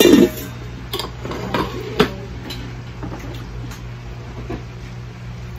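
Light clinks and knocks of tableware and a plastic container being handled on a table: a few sharp clicks in the first two seconds, the loudest about two seconds in, then only faint ticks over a steady low hum.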